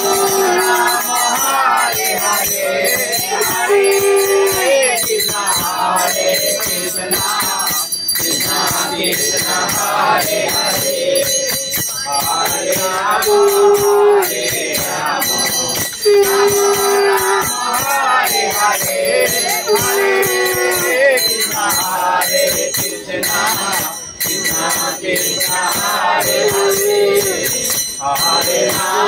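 Hindu devotional aarti song, a voice singing a melody with long held notes over bells jingling in a steady, even rhythm.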